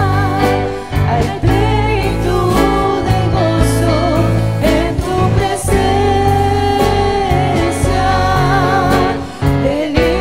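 Live worship music: two women singing a slow hymn with vibrato into microphones, accompanied by electronic keyboard and acoustic guitar.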